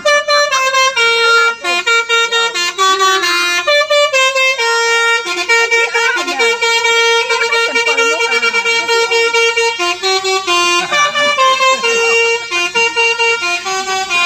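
A bus's 'telolet' musical air horn playing a tune of stepped notes. Short notes alternate at first, then one note is held for about five seconds in the middle, and the quick note changes resume near the end.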